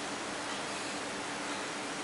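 Steady background hiss with a faint low hum underneath, unchanging throughout.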